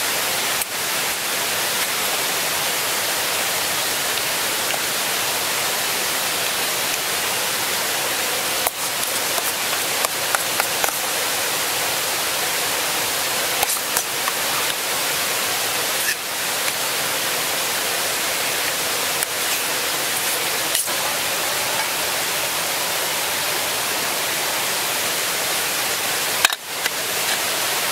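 Steady rushing of a nearby stream or waterfall, with a few short light clinks of a spoon against metal camp pots.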